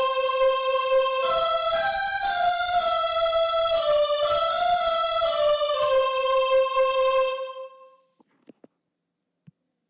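Recorded music playing a melody of held notes that step up and down in pitch. It fades out and ends about eight seconds in.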